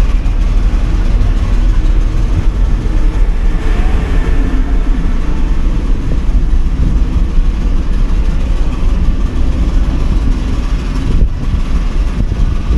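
Loud, steady low rumble with a rapidly fluttering level and no clear pitch or rhythm.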